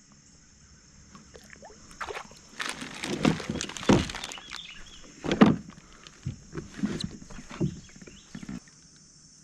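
Irregular knocks, clatters and thumps of tackle and hands against a fishing kayak's hull, with a little water slosh, as a small smallmouth bass just caught is handled in the boat. The loudest thumps come about four and five and a half seconds in.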